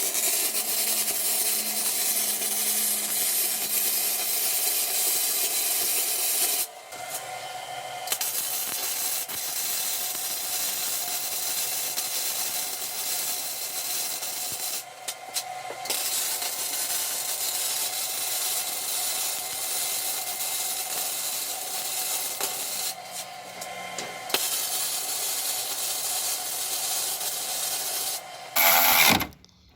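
Forney Easy Weld 140 MP wire-feed welder arc sizzling and crackling steadily while welding a broken car exhaust manifold. It runs in beads of several seconds, stopping briefly three times as the welder pauses between runs.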